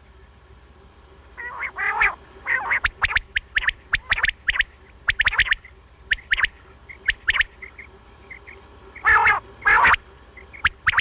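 Common quail calling: repeated short, sharp notes in quick groups, with louder rasping calls about two seconds in and twice near the end.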